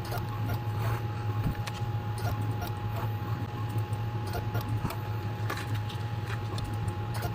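Automatic single-point soldering machine running: a steady low hum with a thin constant whine, and irregular small clicks and ticks throughout.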